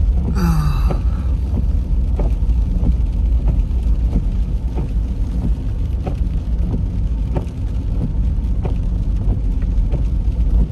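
Car driving on a rain-wet road, heard from inside the cabin: a steady low rumble of tyres and engine, with a faint tick about every two-thirds of a second.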